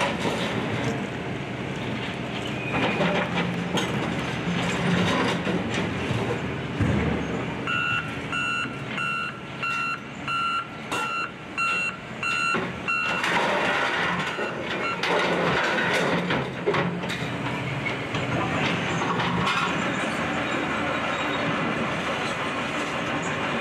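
Excavator demolition: steady crunching, scraping and clanking of debris being torn and broken. From about 8 to 13 seconds in, a reversing alarm beeps about twice a second.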